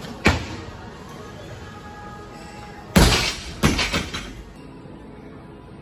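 A 93 kg barbell with rubber bumper plates lands on a lifting platform about three seconds in: a heavy thud, then a few quick smaller bounces. A single sharp clank comes just after the start. Background music plays throughout.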